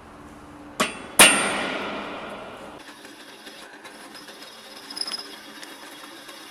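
Two metallic clanks about half a second apart, the second louder and ringing out for over a second, then a few light metal clicks near the end.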